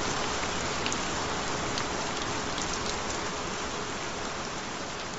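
Steady rain, an even hiss with single drops standing out now and then, slowly fading out. A faint steady tone sits underneath.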